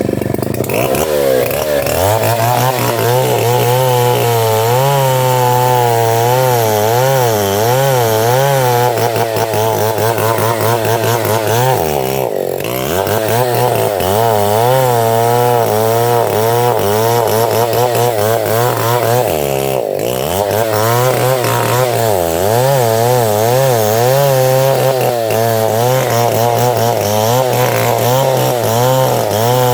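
Octagon 070 two-stroke chainsaw running at high revs while cutting through sengon wood, its pitch wavering as the load on the chain changes. The revs dip briefly twice, about twelve and twenty seconds in, then pick up again.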